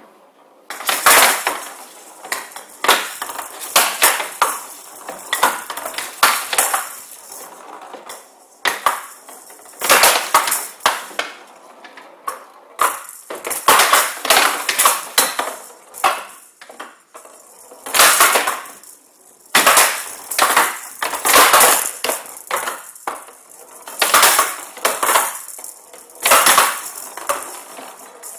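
A Showdown rally: the rattling ball, which has metal beads inside, is hit back and forth with wooden bats and clacks off the table's raised sidewalls, a sharp hit every half second to a second with a few short pauses between exchanges.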